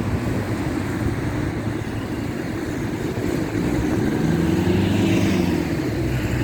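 Road traffic: a motor vehicle's engine running with a steady low rumble, growing louder between about four and five seconds in as the engine note shifts.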